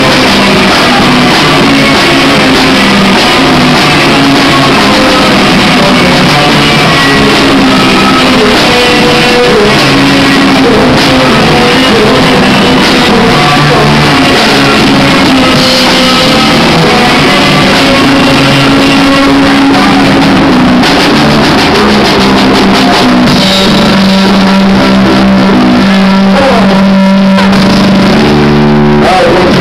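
Live deathrock band playing: distorted electric guitar, bass and drum kit, recorded so loud that the sound is heavily overloaded and crackly.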